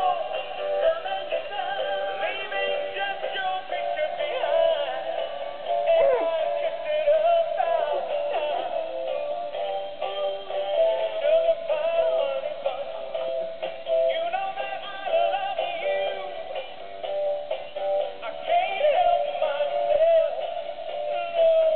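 Animated plush Valentine's Day dog toy singing a song with musical backing through its built-in speaker. The voice is synthetic-sounding, with almost no bass.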